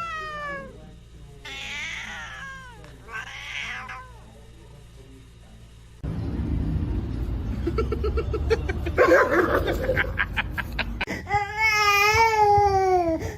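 Cats meowing: three short falling meows in the first four seconds. Then, over louder background noise, a run of rapid clicks and one long wavering meow near the end.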